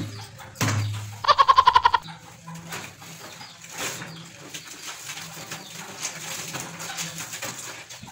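Laundry being hand-scrubbed and sloshed in a basin of soapy water. A little over a second in comes a short, loud quavering call that pulses about a dozen times in half a second.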